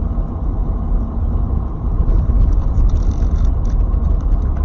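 Steady low rumble of a car driving, engine and tyres on the road, picked up inside the cabin by a dashcam microphone, with a few faint light ticks in the second half.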